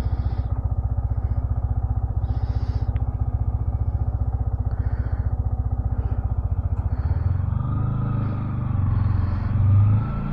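Yamaha MT-15's single-cylinder engine idling with quick, even pulses, then revving up and pulling away about seven seconds in.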